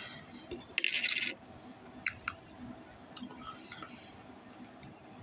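Plastic juice bottle being handled and its screw cap twisted: a short scraping rush about a second in, then a few light clicks as the bottle is raised to drink.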